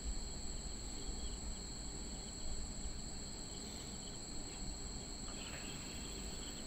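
Crickets trilling steadily at a high pitch, with a few faint soft knocks in between.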